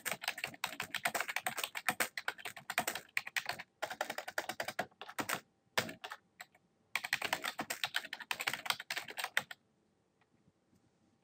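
Fast typing on a computer keyboard, dense runs of key clicks in several bursts with short pauses between, stopping near the end.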